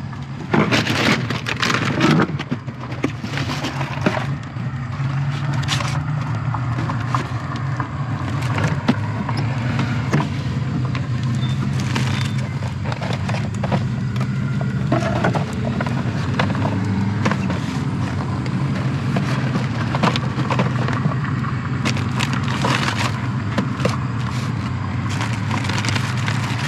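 A vehicle engine running steadily, with clunks and scrapes of packaged food and cans being handled; the handling noises are busiest in the first few seconds.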